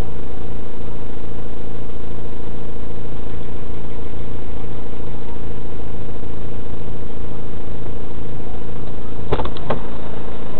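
Car engine idling, heard from inside the stopped car: a steady hum with a low pulse about twice a second. Two sharp knocks come near the end.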